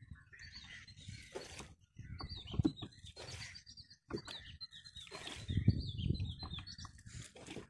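Birds calling in runs of short, quickly repeated high chirps, each falling in pitch, with scattered low thuds and splashy noise between them.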